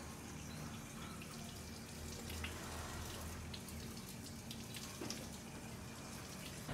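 Faint water trickling and dripping, with scattered small ticks of falling drops.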